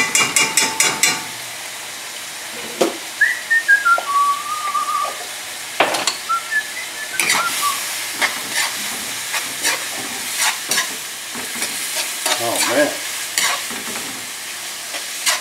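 Ground chicken frying in a stainless steel skillet over a gas burner: a steady sizzle, with a spatula scraping and knocking against the pan as the mixture is stirred. A quick run of ringing taps on the pan comes in the first second.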